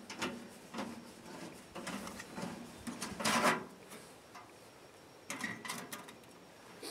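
Thin titanium sheet-metal parts of a Seek Outside wood stove clinking and scraping as the stove is put together and the stovepipe collar is set into its top plate. A string of separate knocks and scrapes, the loudest a longer scrape about three seconds in, then a quick run of clicks near the end.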